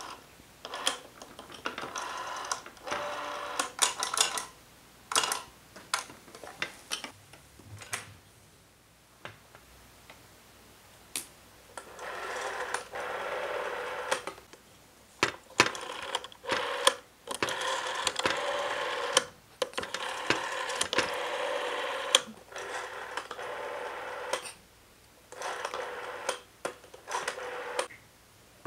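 Rotary dial of a vintage telephone being dialled digit after digit: clicks as the dial is pulled round, each followed by a whirring run as it spins back. There is a pause partway through.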